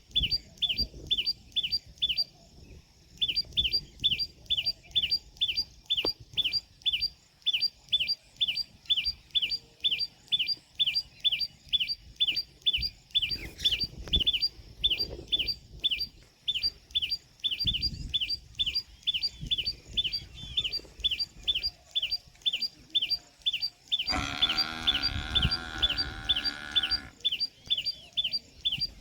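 Common tailorbird calling: a long series of loud, sharp high notes repeated about two to three times a second, with a short break near the start. About twenty-four seconds in, a lower, wavering sound with a clear pitch runs for about three seconds beneath the calls.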